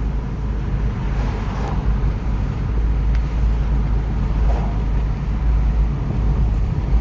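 Moving car's road and engine noise: a steady low rumble with tyre hiss.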